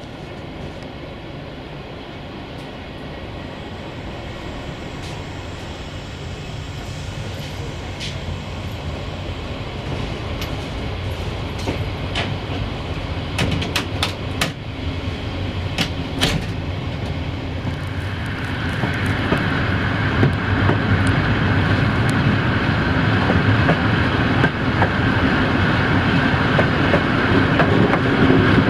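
Train pulling out of a station, heard from on board: a rumble that grows steadily louder as it gathers speed, with a run of sharp clicks from the wheels over rail joints and points about halfway through.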